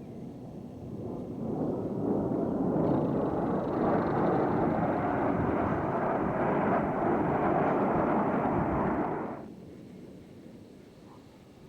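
Jet roar from Blue Angels F/A-18 Hornets flying past, swelling over a couple of seconds, holding loud for several seconds, then cutting off abruptly about nine seconds in.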